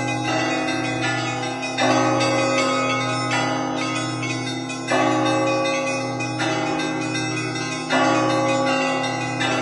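Russian Orthodox church bells rung in a continuous zvon. A dense pattern of smaller bells runs throughout, and a heavier stroke comes about every three seconds, three times.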